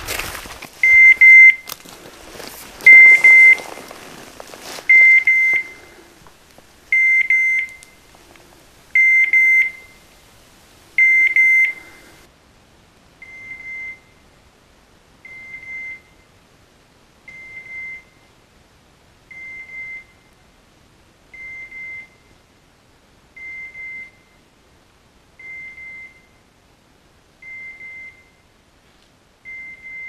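A pointing dog's beeper collar sounds one short high beep about every two seconds, the point-mode signal that the dog is standing still on point. The beeps are loud for about the first twelve seconds and faint after. Rustling through brush is heard in the first few seconds.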